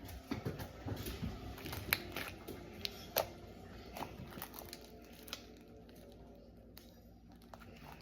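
Homemade glue slime being squeezed and kneaded by hand, making irregular wet clicks and pops as air pockets burst. The pops are busiest in the first few seconds and thin out later. The slime is still stiff, with lotion being worked in to soften it.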